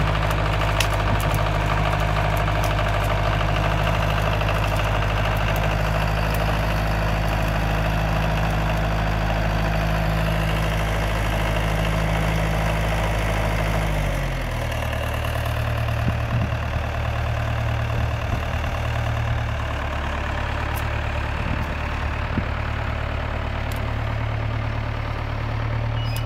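Ferguson tractor engine running steadily while working a rear-mounted winch. About halfway through the engine speed drops and it settles to a slower, lower-pitched idle.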